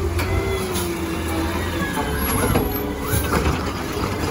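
Natural-gas automated side-loader garbage truck running steadily while its hydraulic arm grabs a wheelie bin, with a whine that rises and falls in pitch as the arm moves.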